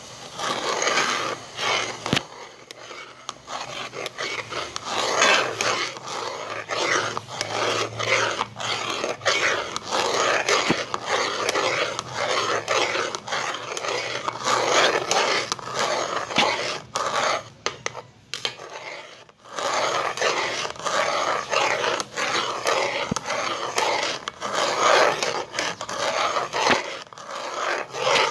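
Metal slotted turner scraping and stirring thick tomato paste around the bottom and sides of a metal cooking pot, in repeated rasping strokes, with a brief pause about two-thirds of the way through.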